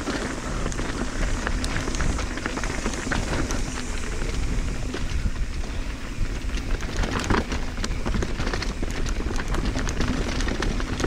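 Mountain bike descending a dirt trail: tyres crackling over dirt and stones, with many small clicks and rattles from the bike and a steady low rumble of wind on the microphone.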